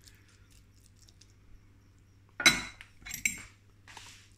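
Metal knife and fork scraping and clinking against a plate, three times, the first about two and a half seconds in the loudest and the last the faintest.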